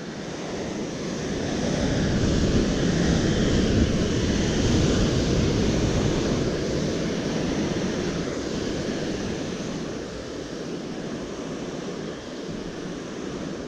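Sea surf breaking and washing against the rocks below, a steady rush that swells over the first few seconds and then eases.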